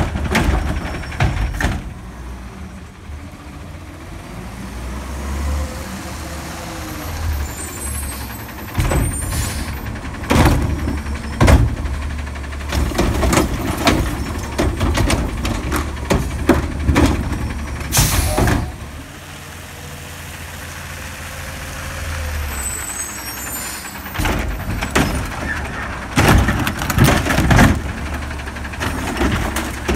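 Front-loading recycling truck working its front-mounted automated cart arm: the engine runs and revs up to drive the hydraulics while the arm lifts, tips and lowers a plastic recycling cart, with repeated clanks and bangs as the cart and its contents hit metal. A loud hiss of air comes about 18 seconds in.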